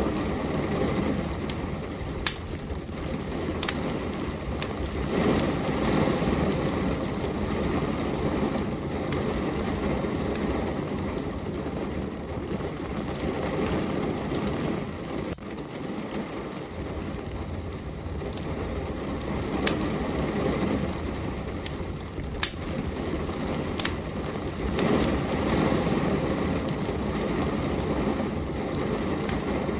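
Steady rain with a low rushing rumble that swells and eases every few seconds, over a burning wood fire giving sharp crackles and pops now and then.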